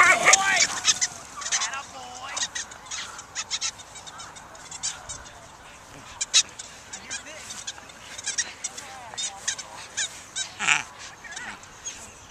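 A whippet honking, a run of short, sharp honks, loudest in the first second.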